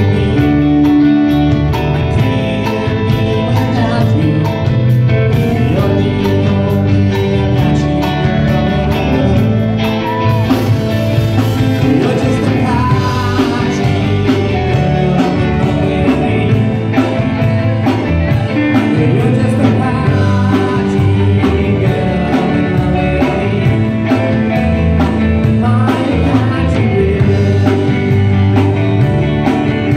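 Live country-rock band playing: electric guitars, bass and keyboard over a steady drum beat, with a sung vocal.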